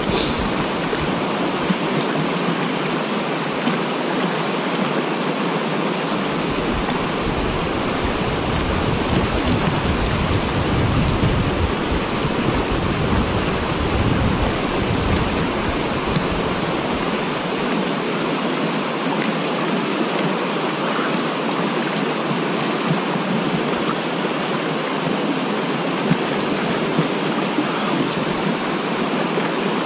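Water spilling over a stepped concrete dam spillway into the pool below: a steady rush of falling water, with a deeper rumble added for several seconds in the first half.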